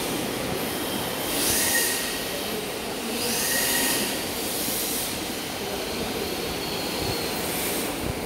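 Radio-controlled drift cars sliding around the track: a steady hiss of hard tyres scraping the smooth floor with a whine of their motors. It swells twice, about one and three seconds in, as cars pass close.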